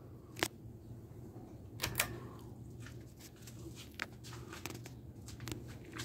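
1987 Alaska 42-inch ceiling fan running with a steady low motor hum, with irregular sharp clicks and ticks over it, the loudest about half a second and two seconds in.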